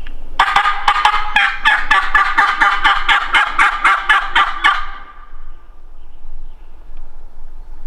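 A long, even run of turkey yelps, about four a second, lasting around four seconds before stopping.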